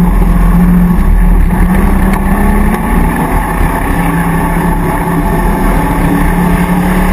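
Land Rover off-road racer's V8 engine running hard under load as it drives over a rough field track, its tone easing slightly and picking up again partway through.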